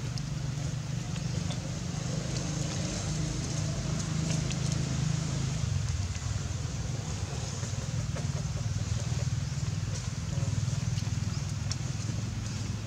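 Steady low rumble of a running engine, with a constant hiss over it and a few faint clicks.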